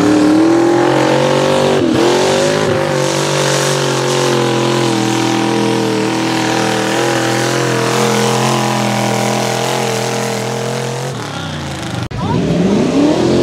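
Mud-racing Jeep Wrangler's engine at wide-open throttle: it revs up hard, then holds at high rpm for about ten seconds as the truck runs through the mud pit, and drops off near the end. In the last second or so another truck's engine revs up.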